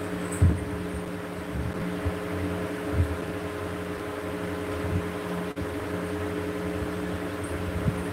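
Electric ceiling fan running, a steady hum with a faint rush of moving air, with a couple of short low thumps.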